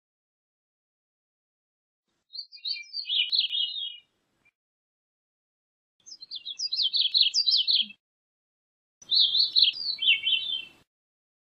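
Gray-cheeked thrush singing: three song phrases a few seconds apart, each a rapid run of high notes about two seconds long that drops in pitch toward its end.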